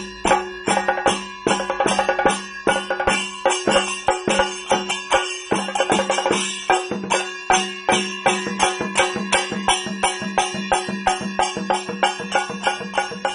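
Kerala temple percussion (melam): rope-laced drums beaten with curved sticks and hands in a fast, even rhythm of about four strokes a second, over a steady ringing tone.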